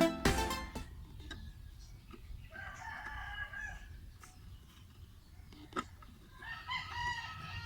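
A rooster crowing twice in the background, each crow lasting about a second, with a few faint clicks between the crows.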